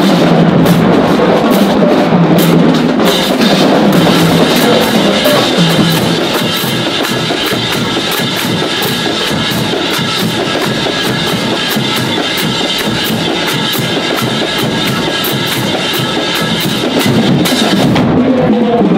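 Marching band drumline playing a loud, driving beat on bass drums and snares.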